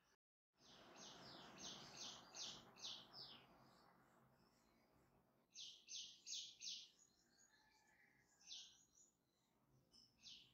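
Faint bird chirping: quick runs of five or six high chirps, a pause, then another run, with a few single chirps near the end. A soft hiss sits under the first run and fades away.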